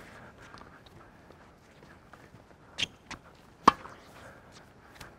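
Tennis ball strikes on a hard court during forehand drives: a few sharp pops of ball on racket strings and ball bouncing. The loudest comes about three and a half seconds in.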